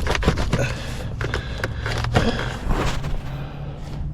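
Center console trim being tugged and worked loose by hand, giving a run of quick clicks and knocks that thin out near the end; the console is stuck fast and will not lift out.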